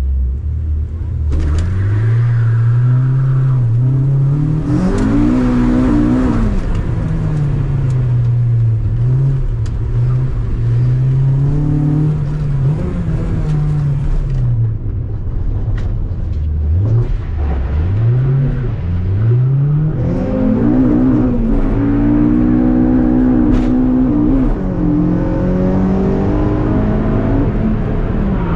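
Honda Civic's B20 VTEC inline-four, heard from inside the cabin, revving up and down over and over as the car is driven hard, the pitch climbing under acceleration and dropping sharply at gear changes and lifts off the throttle.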